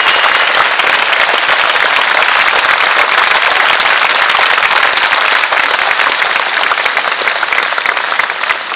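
Crowd applauding, with hands clapping close by, easing off slightly near the end.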